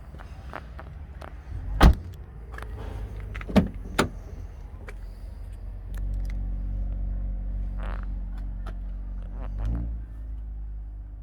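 Clunks and thumps from a 2010 Holden Commodore wagon's door and interior being handled, the loudest about two seconds in and two more a couple of seconds later. From about six seconds in a steady low hum sets in, swelling briefly near the end.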